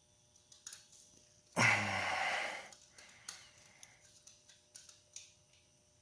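A person's heavy sigh or exhale, lasting about a second, starting about a second and a half in, with a few faint clicks and taps around it.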